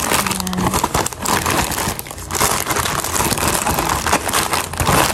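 Plastic snack and food packets crinkling and rustling as they are handled and moved around a plastic basket, close to the microphone.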